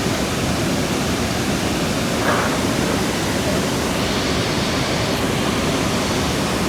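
Steady rushing of falling water: an even, unbroken noise.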